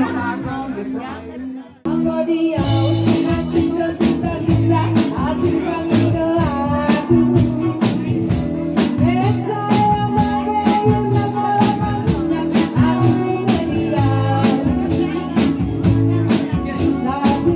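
Band music with a steady beat: one song fades out, and about two seconds in an abrupt cut starts another.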